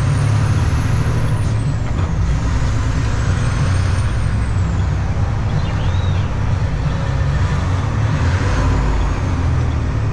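Semi truck's diesel engine and road noise while driving, a steady low drone.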